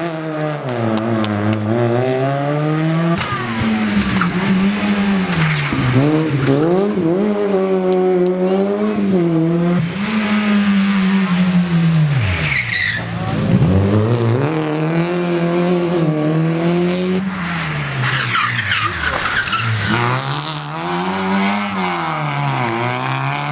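Rally cars taking a tight downhill hairpin one after another, their engines dropping in pitch under braking and rising again as they accelerate away through the gears. Short tyre squeals and wheelspin come as the cars turn and power out of the bend.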